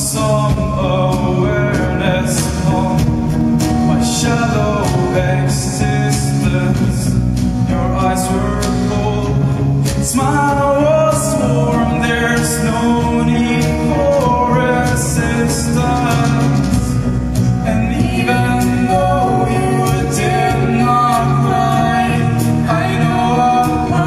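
Live pop song performed by a band: sung vocals over strummed acoustic guitar, with drums and cymbals keeping time.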